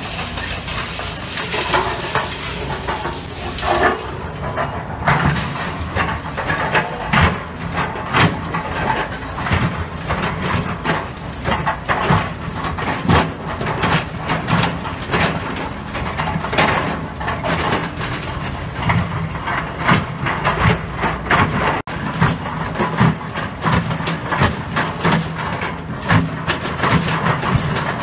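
Excavator's diesel engine running steadily while its bucket drags through concrete rubble and steel rebar, with frequent irregular clanks, knocks and rattles.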